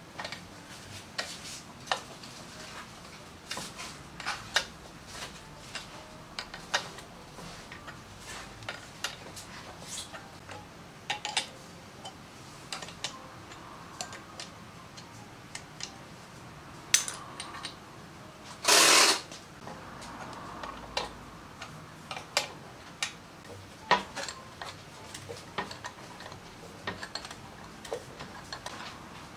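Hand tools clicking and clinking against the metal of a motorcycle transmission as it is fitted, with irregular sharp clicks throughout and one louder half-second rasp about two-thirds of the way in.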